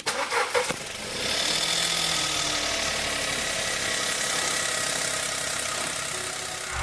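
Turbocharged VW-group TSI petrol engine running, with irregular rattling knocks in the first second. It then settles into a steady running noise with faint high whining tones: the kind of turbo noise that points to a fault in the turbocharger.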